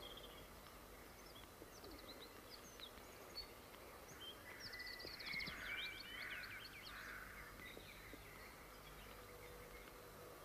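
Faint birdsong: several small birds chirping with short whistled notes. The chirping grows busier in the middle, with a brief rapid trill.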